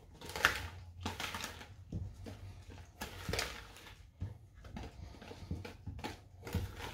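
Wire balloon whisk worked by hand through thick cake batter in a plastic bowl, folding in beaten egg whites, in uneven scraping strokes about one or two a second.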